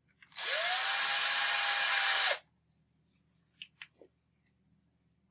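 Power drill driving a hinge screw into a folding door panel: the motor spins up and runs steadily for about two seconds, then stops. A few light clicks follow.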